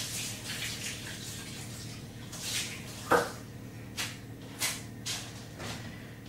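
A small mixing bowl being washed out at the sink. There are water swishes, a sharp clunk of the bowl about three seconds in, then short scrubbing strokes about twice a second, over a steady low hum.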